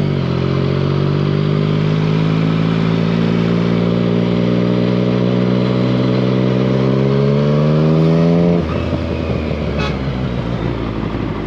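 Motorcycle engine pulling steadily under throttle, its pitch rising slowly as the bike gathers speed, then falling away suddenly when the throttle is closed about eight and a half seconds in, with rushing wind noise underneath.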